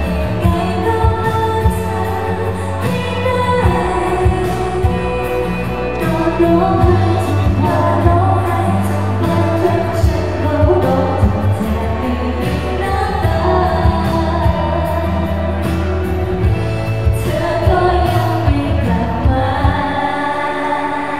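Female pop vocals sung into handheld microphones over a pop backing track with a steady drum beat and bass; the bass drops out near the end.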